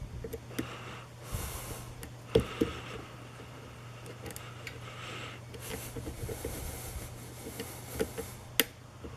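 Scattered small clicks and light scrapes of a lock pick working the pins of a pin-tumbler lock during single-pin picking under light tension, over a steady low hum.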